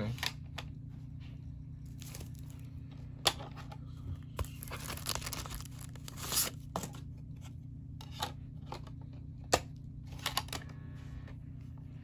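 Paper CD sleeve rustling and crinkling as it is handled, busiest in the middle, with scattered sharp clicks and taps over a steady low hum.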